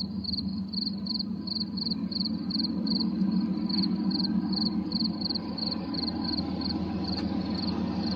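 A night insect chirping steadily in short, high chirps, about three or four a second, over a steady low rumble.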